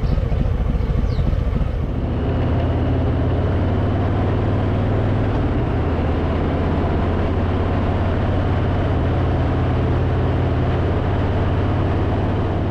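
Harley-Davidson Fat Boy's V-twin engine running steadily under way, with a rush of wind and road noise. The engine note dips and settles at a slightly different pitch about two seconds in.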